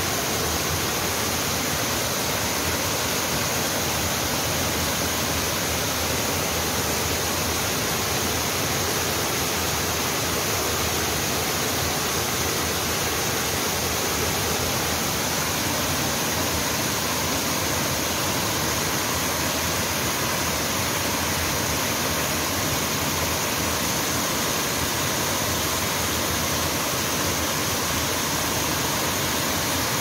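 Mountain stream rushing over rock cascades below a waterfall: a steady, even rush of falling water that does not change.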